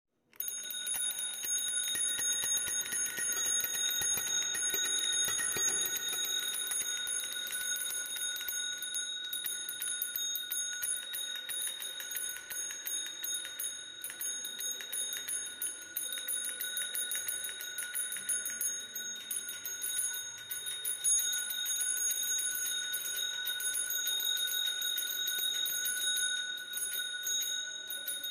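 Bicycle bell rung over and over in a rapid, unbroken ringing, its strikes blurring into a steady metallic ring.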